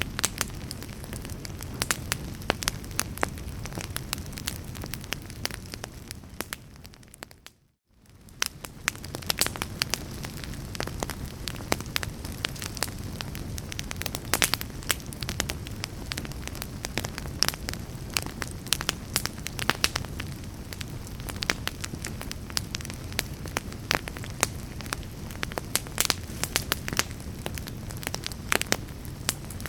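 Wood fire burning in a fireplace: a steady low rush of flames with frequent sharp crackles and pops from the logs. About seven seconds in, it fades briefly to near silence and fades back in.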